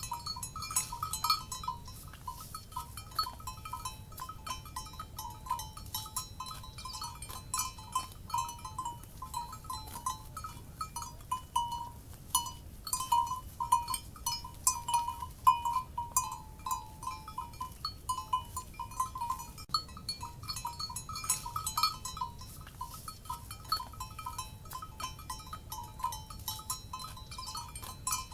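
Cowbells on livestock clanking irregularly and without pause: several bells a little apart in pitch, struck again and again as the animals move.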